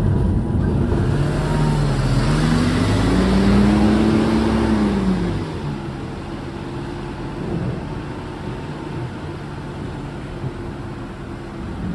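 City bus engine accelerating, its pitch climbing for a few seconds and then dropping off about five seconds in. After that only a quieter steady hiss remains.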